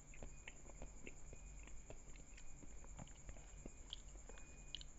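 Faint chewing of a mouthful of fruit salad: soft, irregular small clicks and mouth sounds.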